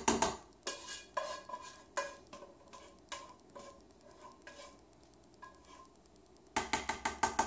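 Metal spatula scraping out a pot, each stroke a separate scrape or knock that rings briefly. Near the end comes a quick run of about seven taps against the pot to knock the last food loose.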